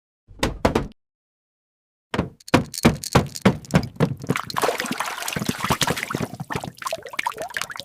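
Wet cartoon sound effects: a short squelch, then after about a second of silence a dense run of wet splats, drips and knocks.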